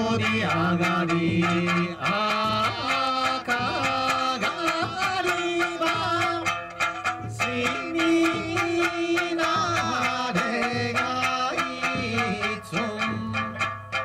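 Okinawan Eisa music: a folk song sung with sanshin accompaniment over steady, evenly spaced taiko drum beats.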